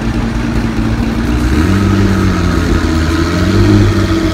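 Ferrari V12 supercar engine idling, its pitch stepping up a little about one and a half seconds in and holding at the higher idle.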